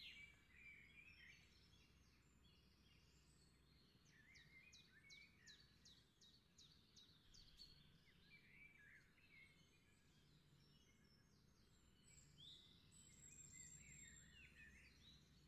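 Near silence with faint birdsong: scattered high chirps and whistles, including a run of quick repeated chirps between about four and seven seconds in.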